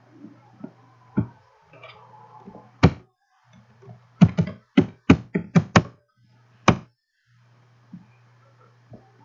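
Computer keyboard keystrokes as a password is typed: one sharp key press, then a fast run of about six presses, then a last one about a second later.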